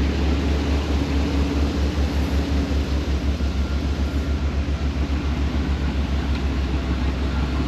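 Vehicle engines idling, a steady low rumble that throbs evenly.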